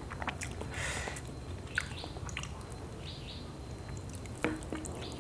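A person chewing a mouthful of rice and fried food eaten by hand, with scattered small wet mouth clicks and brief soft rustles as fingers pick at food on a plate.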